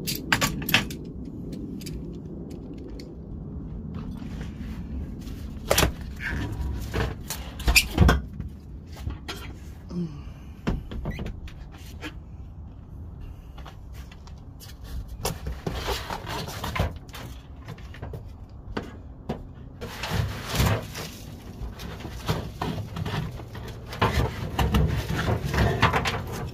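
Clunks and knocks with stretches of rustling as the steel jack, spare tire, foam spare-tire tray and felt padding are unbolted and lifted out of a car trunk by hand. The sharpest knocks come about six and eight seconds in.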